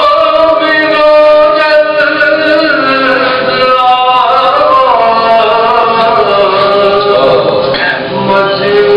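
Men's voices chanting a soz, the Urdu elegiac recitation of a Shia majlis, as a melodic rubaai with long held, slowly bending notes.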